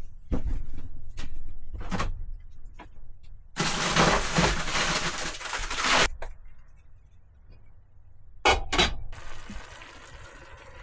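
Kitchen handling sounds: dishes and utensils clinking and knocking, with a loud rushing noise lasting about two and a half seconds in the middle, and two sharp clatters near the end.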